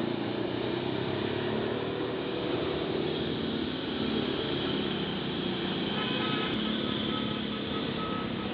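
Tour bus diesel engine working hard up a steep climb as the bus passes, a steady heavy engine sound over road noise. A faint high-pitched tone comes and goes in short pieces near the end.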